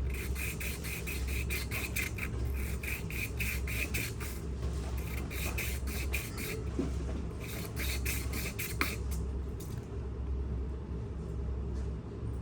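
Hand sanding: quick back-and-forth scrubbing strokes of sandpaper on a part being cleaned, in several runs with short pauses, over a steady low hum.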